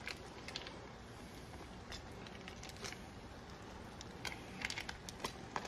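Foil wrapper of a cream cheese block being handled over a skillet: soft crinkles and light ticks, sparse at first and busier near the end as a wire whisk scrapes the last of the cheese off the foil.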